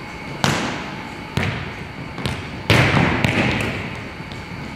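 Volleyballs being hit and bouncing on a hardwood gym floor: about five sharp smacks, each ringing out in the echoing gym, the loudest a little under three seconds in.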